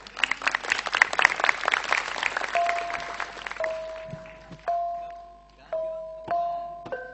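Audience applause that fades out over the first three seconds. Then a Javanese gamelan begins: bronze bonang pot gongs struck one note at a time, about once a second, each note ringing and slowly fading.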